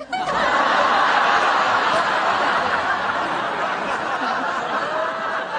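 Studio audience laughing at a sitcom joke: a big laugh that breaks out all at once and slowly dies down.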